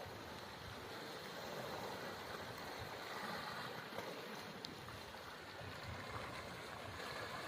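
Steady rush of flowing river water, with one faint click about two-thirds of the way through.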